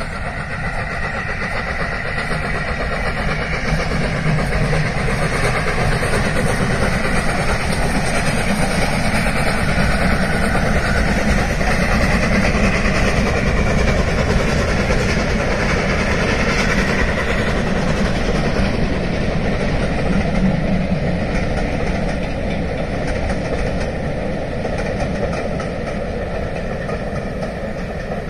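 Steam locomotive hauling a train of coaches past, a steady rushing run that swells to a peak about halfway through and slowly fades.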